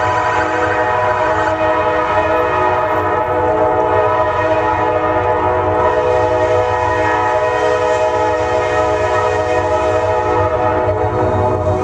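Diesel locomotive horn held in one long, steady multi-note chord, sounding for the grade crossing, over the low rumble of the approaching train.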